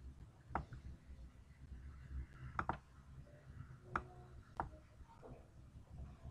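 Faint clicks of computer input, about five sharp clicks at uneven intervals, over a low steady hum.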